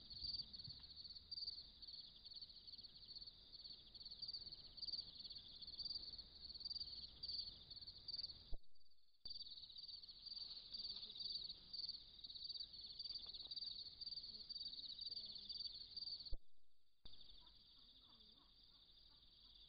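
Night chorus of crickets, a steady high pulsing trill. It breaks off twice for about half a second, each time with a sharp click, where one camera-trap clip is cut to the next.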